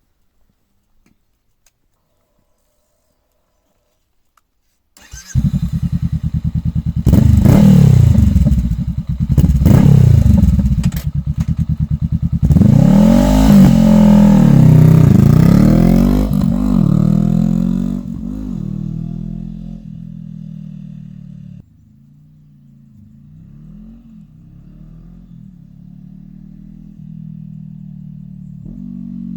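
Honda CB500F's parallel-twin engine through a Mivv GP Pro slip-on exhaust. After about five seconds without sound, the motorcycle pulls away hard, revving up and dropping back through the gears. It passes close by and fades away, and a quieter engine note climbs again near the end.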